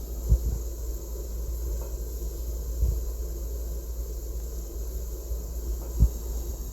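Water simmering in a pot on a stovetop: a steady low rumble and bubbling hiss, with three soft low pops of bubbles, one at the start, one about three seconds in and one near the end.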